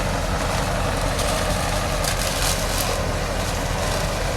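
A vehicle engine running steadily, a low even rumble with a haze of noise over it.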